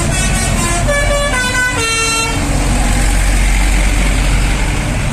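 Tour bus 'telolet' multi-tone musical air horn playing a quick run of notes that step up and down in pitch, stopping about two and a half seconds in. A steady low engine rumble and road noise carry on underneath and after it.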